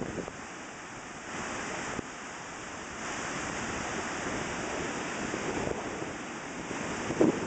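Surf washing onto a sandy beach: a steady rushing hiss that swells after about a second and stays full through the middle.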